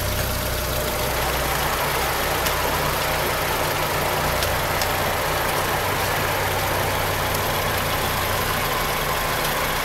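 Mitsubishi car engine idling steadily, heard close up in the engine bay.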